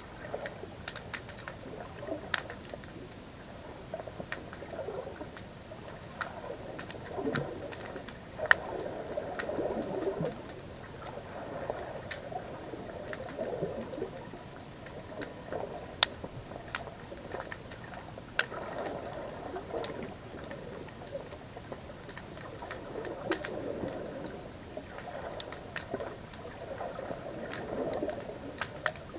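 Underwater sound picked up by a GoPro in its waterproof housing inside a crab pot: a muffled, wavering wash of moving water with many irregular sharp clicks and ticks, one louder click about eight seconds in.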